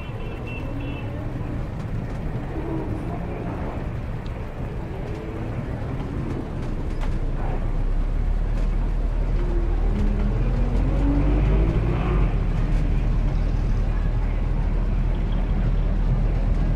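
Street traffic: a steady rumble of car engines and passing vehicles, growing louder about seven seconds in.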